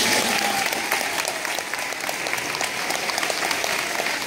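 Audience of schoolchildren and adults applauding, a dense, even clapping that holds steady.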